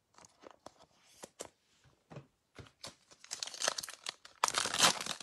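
A few light clicks and taps of trading cards being handled. About three seconds in, a foil trading-card pack is torn open and its wrapper crinkles loudly.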